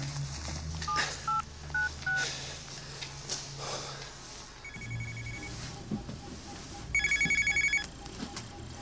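Mobile phone keypad beeping four times as a number is dialled, then an electronic telephone trilling twice, the second ring louder.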